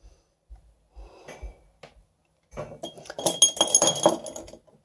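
Light metallic clinking and clatter: a few faint taps at first, then from about halfway a busier run of clinks with a brief high ringing tone.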